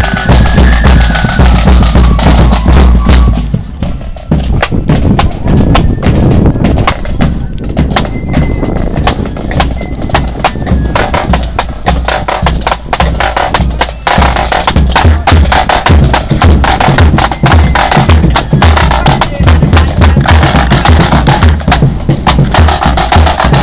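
Marching band drums: snare drums rattling rapid strokes over a bass drum beat.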